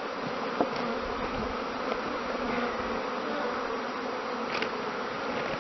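Steady buzzing of a mass of honeybees swarming around an opened nuc box as they are moved into a new hive; the bees are agitated.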